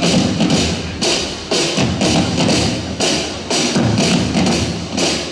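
Street drum group playing a loud, steady beat at a correfoc, about two strokes a second.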